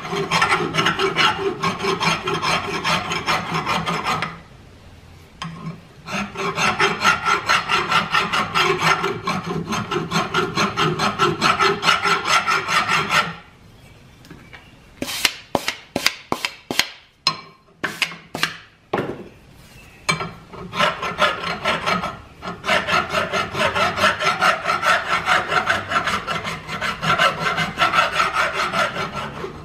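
Hand file rasping back and forth across the edges of a metal part held in a bench vise, deburring it. The filing stops briefly about four seconds in, and again in the middle, where a quick run of sharp taps and clicks comes instead before steady filing resumes.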